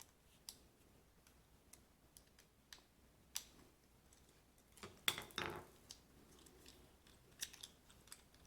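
Faint scattered clicks and handling of a plastic mains plug's cable clamp being opened and fitted over the cable, with a louder handling noise about five seconds in.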